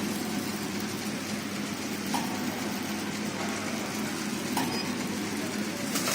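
Incense stick counting and packing machine running steadily, a constant mechanical hum and whirr, with a faint click about two seconds in and again past four seconds.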